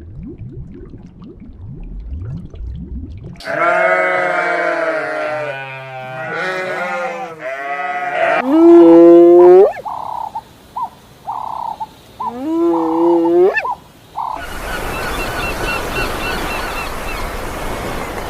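A series of loud animal calls with wavering, gliding pitch, two of them rising sharply near their ends. A low rumble comes before them, and a steady noisy stretch with faint calls follows.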